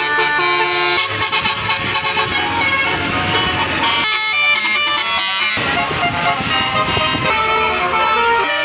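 Bus 'telolet basuri' musical horn playing a melody, its multi-tone notes stepping from pitch to pitch, with a rapid stuttering run of short toots a little past the middle.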